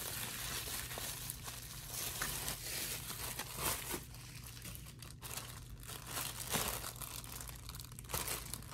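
Plastic packaging crinkling and rustling: bubble wrap and a clear plastic bag are handled and pulled off a new replacement laptop keyboard in irregular crackly bursts, quieter about halfway through.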